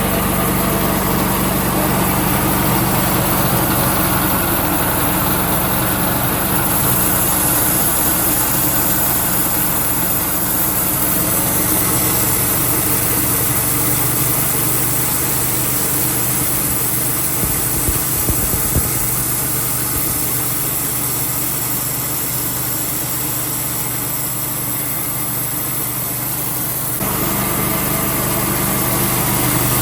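Sawmill's small engine running steadily under load as the saw works through a cedar log, with a few short knocks about two-thirds of the way through and an abrupt change in the sound near the end.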